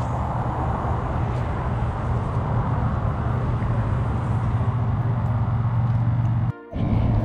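Steady low outdoor rumble, broken by a brief sharp drop-out about six and a half seconds in.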